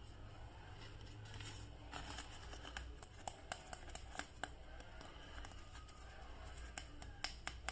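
Faint handling of a plastic action figure and its packaging: irregular sharp clicks and light crinkling, busiest about two seconds in and again near the end.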